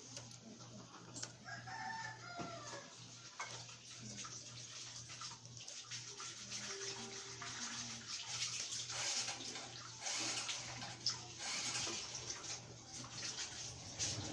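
Laptop keyboard being typed, a scatter of light key clicks over a steady low hum. About two seconds in, a rooster crows in the background, and a hiss builds up in the second half.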